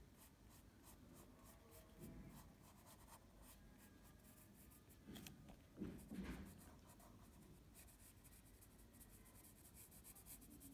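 Staedtler pencil scratching faintly on paper in quick, light strokes as a line is drawn, with a few slightly louder soft strokes about two, five and six seconds in.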